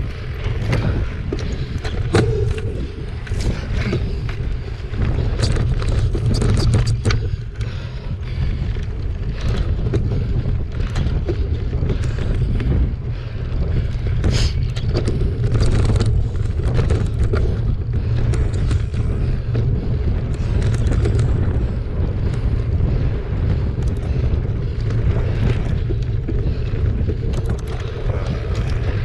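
Wind rushing over a handlebar camera's microphone as a mountain bike is ridden fast along a dry dirt trail, a steady low rumble. Frequent clicks and knocks come from the bike rattling over the rough ground.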